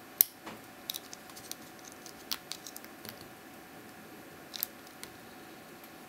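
Steel lock pick and tension wrench working the pins of a Vachette Achille 50 mm brass padlock with anti-pick pins: irregular sharp metallic clicks and small scrapes, the loudest just after the start.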